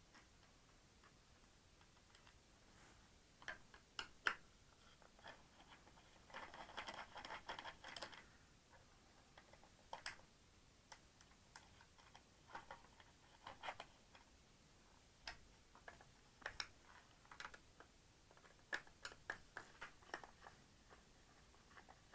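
Faint, scattered clicks and taps from a plastic battery-pack case being handled and opened, with a stretch of scraping a few seconds in.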